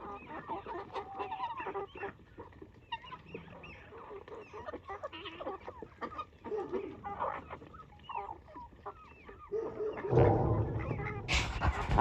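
A flock of farm poultry calling, many short overlapping clucks and calls from chickens and other fowl. Near the end a loud, rough noise comes in and drowns them out.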